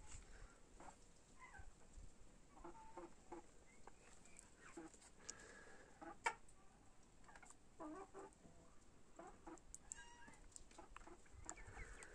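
Hens clucking faintly in short, scattered calls. There is a single sharp tap about six seconds in.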